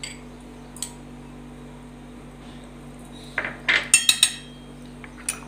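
A metal spoon scraping and clinking against bowls as chopped green chillies are tipped into a stainless steel mixing bowl: a couple of light taps, then a quick cluster of sharp clinks about three and a half seconds in and one more near the end.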